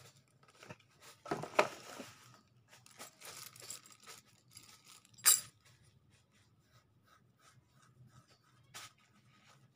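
Cardboard box and packaging handled as an equalizer unit is slid out of it: scraping and rustling for a few seconds, then a single sharp knock about five seconds in, followed by quieter handling and a smaller knock near the end.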